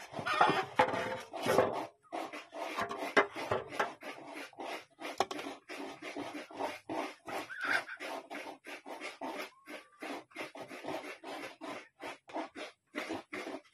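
A quick, irregular series of scraping and tapping strokes, several a second, busiest and loudest in the first two seconds.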